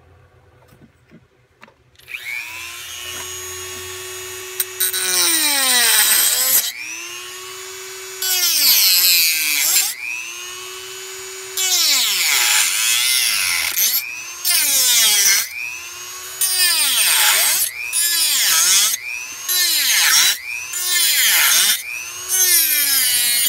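Corded handheld rotary tool spinning up, then cutting the bell off the bottom of an aluminum bottle in about eight separate passes. Each time it bites into the metal a harsh, hissing cut rises over the motor's whine and the whine dips in pitch under load, then climbs back between passes.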